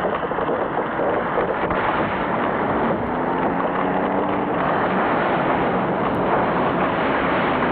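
Chainsaw engine running steadily while felling a tree, its note half-buried in a dense, noisy sound.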